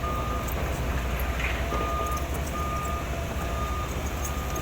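Backup alarm of a heavy construction machine sounding a series of half-second beeps at one pitch, with a gap early on, over the steady low rumble of a diesel engine.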